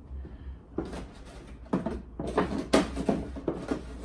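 Clear plastic packaging being handled: crinkling and crackling of plastic wrap with light knocks of plastic trays, starting about a second in and continuing in quick, irregular bursts.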